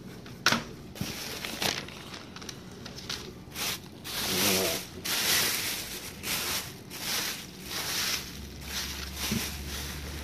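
Plastic bags and packing material being handled while a shipping box is unpacked: irregular crinkling and rustling in many short bursts.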